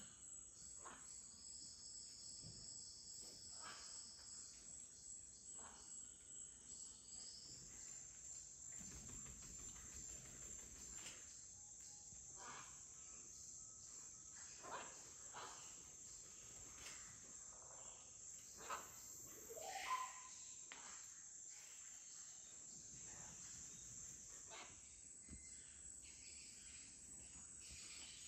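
Faint, steady high-pitched drone of rainforest insects, with a few short animal calls scattered through it. One call rises in pitch about two thirds of the way in.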